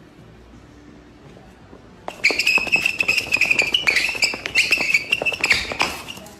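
Rapid clicks and knocks of a dog scrambling after a ball on a concrete floor, starting about two seconds in, over a high steady whine.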